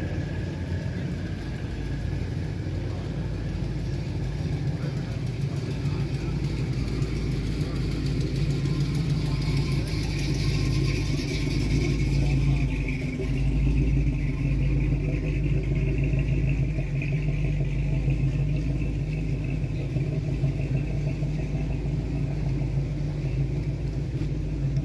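A car engine running steadily, getting somewhat louder around the middle, with voices in the background.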